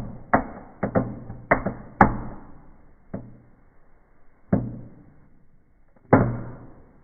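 Small indoor table fireworks going off in sharp pops, each with a short ringing tail. They come quickly at first, then further apart, with a loud pop about two seconds in and a last loud one about six seconds in.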